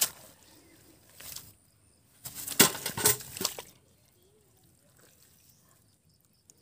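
Hands digging and groping in wet mud. A sharp knock comes at the very start, then a cluster of loud squelching, slapping noises from about two to three and a half seconds in, after which it goes quiet.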